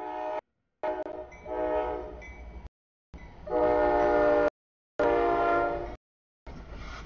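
CSX freight locomotive horn sounding several blasts for the grade crossing, a short one followed by longer ones. The sound cuts out completely for a moment between blasts.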